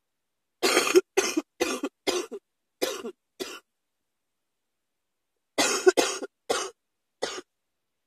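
A person coughing in two fits: about six coughs in quick succession that grow weaker, then after a pause of about two seconds, four more.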